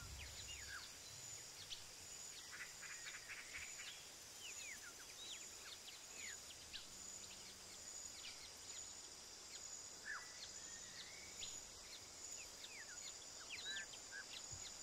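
Faint forest ambience: many short bird chirps and whistles scattered throughout, over a steady high insect drone.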